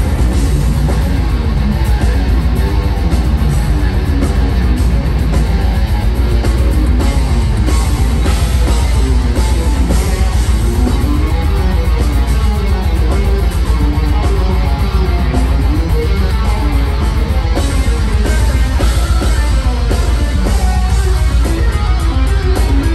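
Progressive metal band playing live: electric guitar, six-string bass, drums and keyboards, with a heavy, steady low end.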